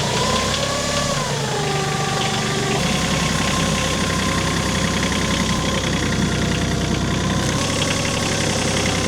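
Diesel tractor engine running just after a cold start without its block heater, its pitch shifting in the first few seconds, then settling into a steady run. It sounds angry and is blowing a lot of smoke as it runs cold.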